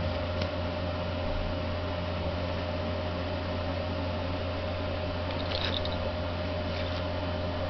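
Steady electrical hum with a constant mid-pitched tone, and a few faint, brief rustles about five and a half seconds in.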